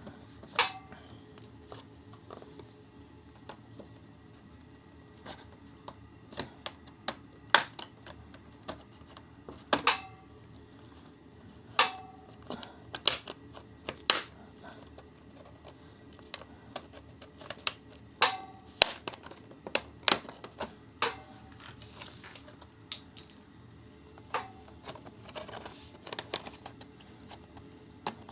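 Irregular plastic clicks, taps and small snaps of a laptop's bottom case being pried open along its seam, the case clips letting go one by one. Some clicks carry a brief ringing tone.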